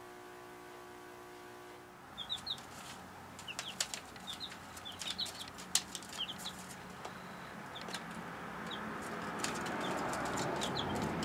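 Young chicks peeping in short, high, rising chirps, with sharp clicks from pecking and scratching on newspaper and a rustling noise that builds near the end. Before the chirping starts, about two seconds in, there is a faint steady hum.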